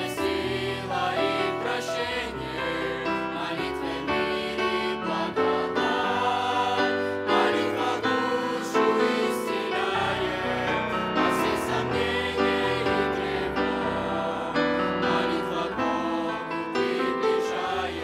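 Youth choir of girls and boys singing a hymn together into handheld microphones, with sustained, shifting sung notes and no break.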